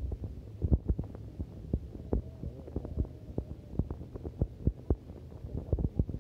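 Muffled, irregular low thumps and clicks, several a second, over a low rumble, as heard through a smartphone microphone held underwater in a shallow river.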